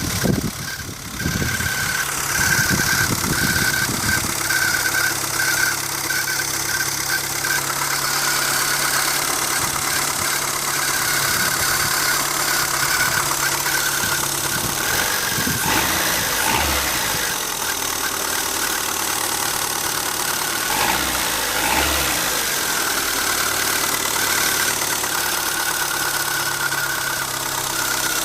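1999 Renault Twingo's 1.2 D7F four-cylinder petrol engine running cold at idle, with a high squeaking whine over it. The squeak chirps on and off in quick pulses for the first several seconds, then runs more steadily. It is a cold-engine squeak whose cause the owner does not know.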